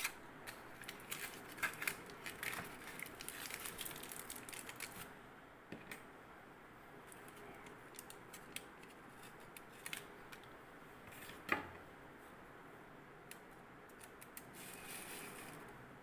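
A utensil scraping and clicking against a mixer jar and container as thick blended ice cream base is transferred. It comes as a dense run of scrapes and clicks over the first five seconds, then scattered light clicks with one sharper knock about midway.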